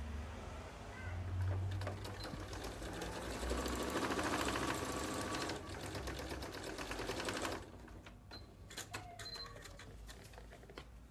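Electric domestic sewing machine stitching a short seam, running faster in its second half and stopping about seven and a half seconds in. A few light clicks follow.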